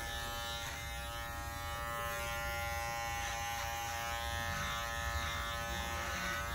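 Electric hair clippers running with a steady hum while being worked over a comb on the side of the head, trimming off excess hair in a clipper-over-comb cut.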